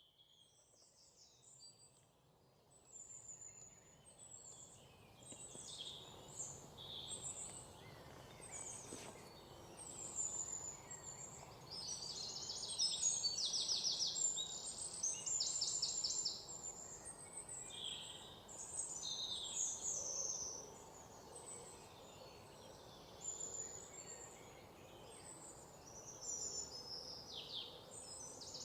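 Several birds chirping and trilling, many short high calls overlapping, over a faint steady background noise; it fades up from near silence over the first dozen seconds.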